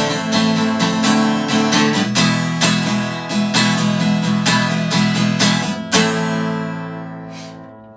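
Acoustic guitar strummed in a steady rhythm, ending on a last chord about six seconds in that rings out and fades away.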